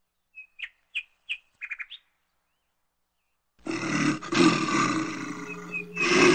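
A small bird chirps four times and gives a short trill. After a second and a half of silence, a much louder, dense, hissing sound with a steady low tone starts suddenly and carries on.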